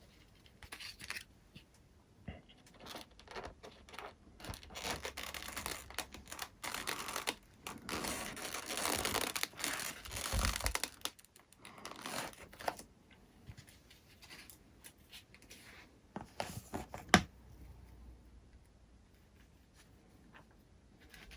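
Workbench handling noises: irregular rustling, scraping and tearing sounds from working on the foam plane, busiest in the middle, with one sharp click about three quarters of the way through.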